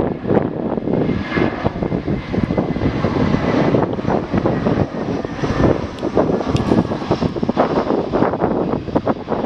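Airbus A320 airliner's jet engines running as it lands, under heavy wind buffeting on the microphone.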